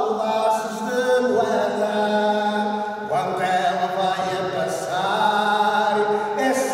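A man's voice singing slowly, holding long notes and gliding between them, in a church.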